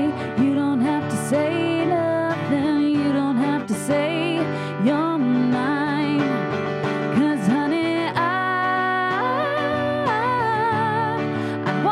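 Female vocal duo singing with acoustic guitar accompaniment, the voices holding long notes with vibrato.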